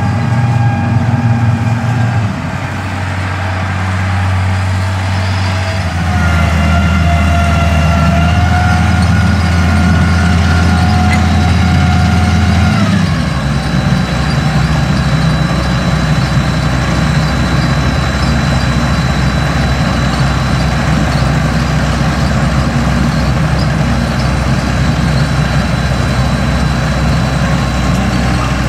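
Case IH Steiger 9330 four-wheel-drive tractor's diesel engine running while it pulls a triple hay merger. The engine note steps in pitch a few times in the first half, with a short rise about 13 seconds in, then holds steady with a faint high whine over it.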